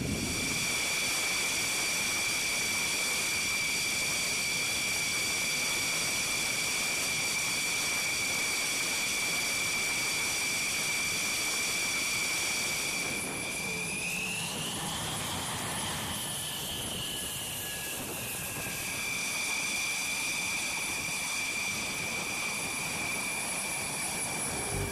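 Jet engine whine from a Dassault Rafale fighter on the ramp: a steady high whine over a rushing hiss. About halfway through, the whine rises in pitch, then eases back down a few seconds later.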